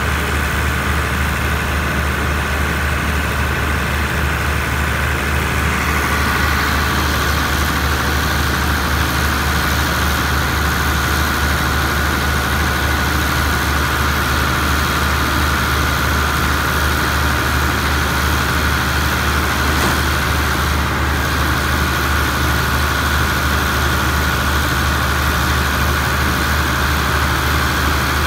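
A diesel passenger train standing at a platform with its engines idling: a steady low hum, joined about six seconds in by a steady higher whine that holds to the end.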